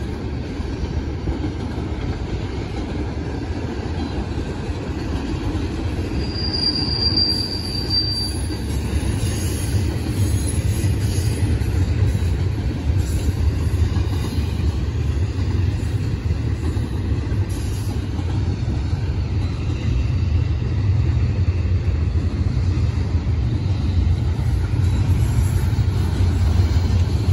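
Double-stack intermodal freight train's container well cars rolling past, a steady low rumble of wheels on the rails. A brief high squeal comes about six seconds in.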